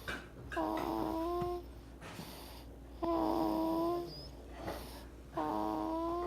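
Snoring with a tuneful, sung quality: on each breath a held note of about a second at a steady pitch, three times, with softer breathy sounds in between.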